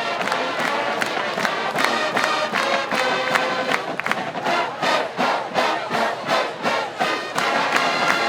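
College marching band playing brass and percussion with a steady drum beat, over stadium crowd noise.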